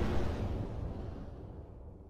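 Deep boom-and-whoosh intro sound effect dying away, its low rumble fading steadily.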